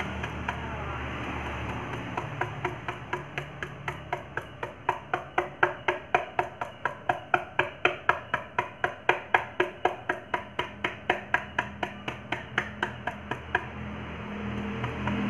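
Paintbrush dabbing thick texture paint onto a wooden speaker box: a steady run of taps, about four a second, starting about two seconds in and stopping near the end.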